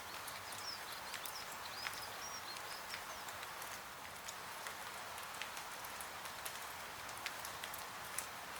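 Steady rain hiss with irregular sharp crackling pops and drips scattered through it, and a few faint high bird chirps in the first few seconds.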